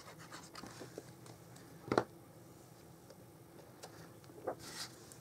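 Cardstock being handled on a worktable: a few light ticks and rustles, with one sharper tap about two seconds in.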